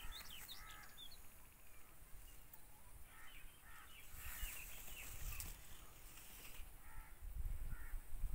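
Crows cawing in short clusters a few seconds apart, with quick high chirps from smaller birds in the first second.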